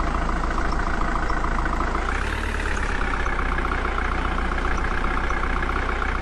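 Tractor engine running steadily at idle, with a brief lift in pitch about two seconds in.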